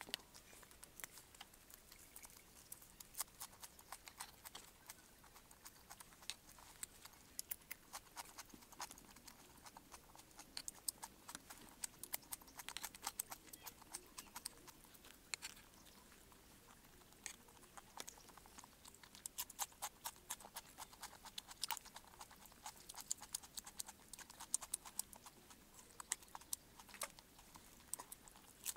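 Close-up eating sounds: a person chewing and crunching a meal of rice, fish and raw greens, with a metal spoon scraping and tapping on bowls. These come as many short, sharp clicks at an irregular pace throughout.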